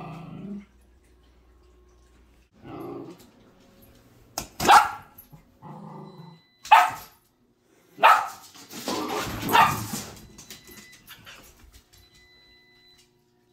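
Sheltie puppy growling low and barking sharply over her food bowl, a few short growls broken by several loud barks: her warning to the cats to keep away from her food.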